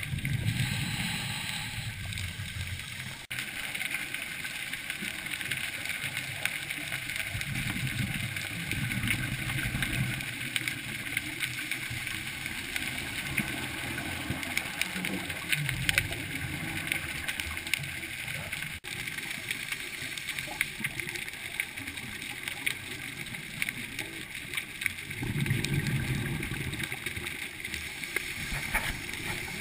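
Underwater ambience heard through a dive camera housing: a steady fine crackle and hiss, with the low bubbling rumble of scuba regulator exhaust bubbles swelling every several seconds as a diver breathes out.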